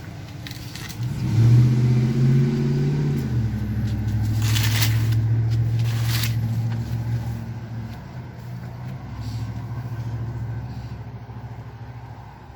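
A motor vehicle engine running close by: it rises about a second in, its pitch drops a step around three seconds in, then it holds steady, swells once more and fades out. Two brief scratchy noises sound in the middle.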